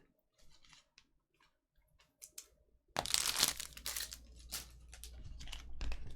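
Trading-card pack wrapper crinkling and tearing open. It starts suddenly about three seconds in, after a few faint clicks, and goes on crackling in uneven bursts.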